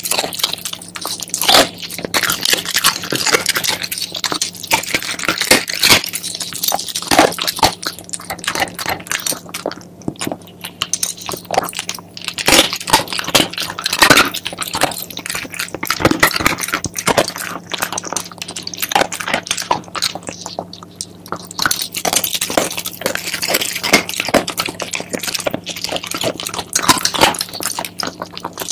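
Shiba Inu chewing chicken feet, the bones crunching and crackling between its teeth in rapid, irregular bites, with two short lulls about ten and twenty seconds in.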